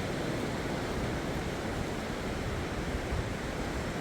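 Sea surf washing on the shore, a steady rush of noise, with wind buffeting the microphone.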